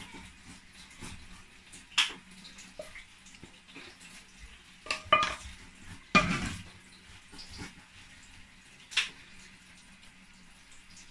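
Utensil and frying pan clinking and knocking as shredded chicken is served out onto a tortilla: a handful of sharp clinks, one with a brief metallic ring, the loudest about six seconds in.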